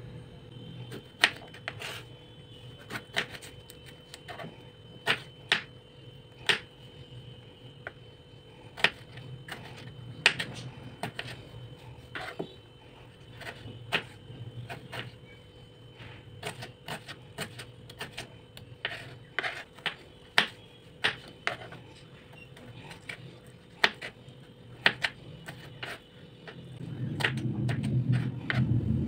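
Kitchen knife chopping tomatoes on a wooden cutting board: irregular sharp taps of the blade striking the board, often one or two a second. Near the end there is a louder low rumble.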